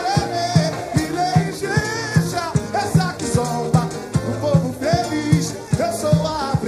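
Live samba-enredo: a lead voice sings over a samba school bateria, with deep drums on a steady beat and bright high percussion.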